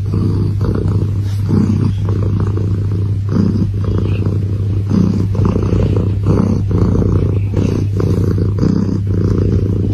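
Domestic tabby cat purring loudly, close up, in an even pulse about twice a second as it breathes in and out.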